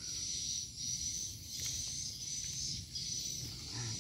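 Insects trilling in a steady high-pitched chorus that swells and dips every second or so.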